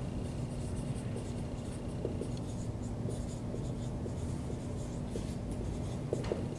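Dry-erase marker writing on a whiteboard: many short squeaks and scratches of the tip as words are written, over a steady low room hum.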